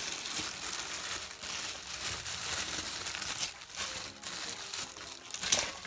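White wrapping paper being crumpled and rustled by hand while unwrapping a package: irregular crinkling and crackling, loudest about five and a half seconds in.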